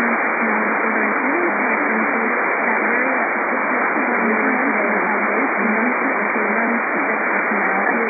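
AM radio reception: a steady hiss of static in a narrow, muffled band, with a faint, unintelligible voice wavering beneath it.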